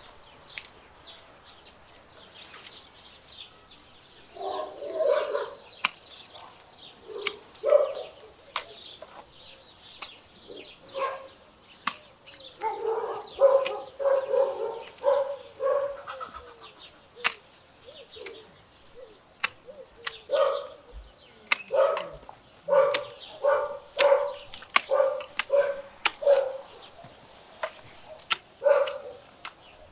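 A dog barking in repeated runs of quick barks, starting about four seconds in. Sharp clicks of hand pruning shears snipping small branches run throughout.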